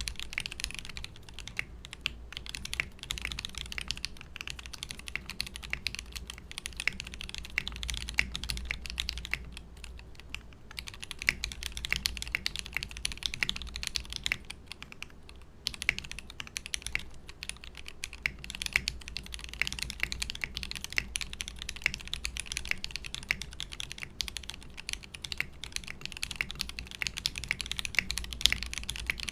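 Continuous fast typing on the Rart75 LS custom mechanical keyboard: lubed Jwick Yellow switches under PBT keycaps, on a brass plate in a leaf-spring sandwich mount inside a stacked acrylic case. It gives a dense run of distinctly clacky keystrokes, with a short lull about ten seconds in and a brief pause about fifteen seconds in.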